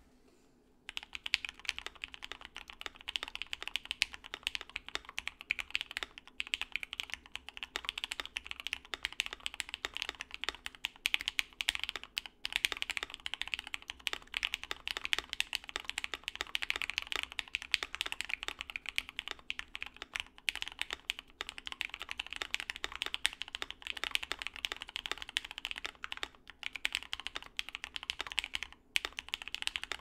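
Fast, continuous typing on a Lin Works Whale75 mechanical keyboard with Gateron 8008 Ink linear switches on a polycarbonate plate and IFK Graen keycaps; dense keystrokes begin about a second in.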